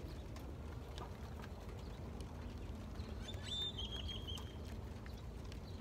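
A bird gives one short, high, wavering call about three seconds in, over a faint steady outdoor rumble. Faint ticks of a knife working on a small trout come and go.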